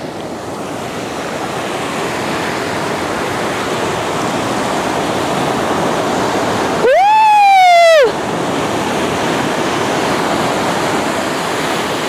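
Ocean surf washing up over a sandy beach, a steady rushing wash that slowly builds in loudness as a wave comes in. About seven seconds in, a voice calls out once, a drawn-out call about a second long that rises and then falls in pitch.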